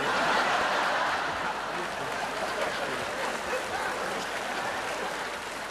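A large audience laughing and applauding, loudest at the start and slowly dying down.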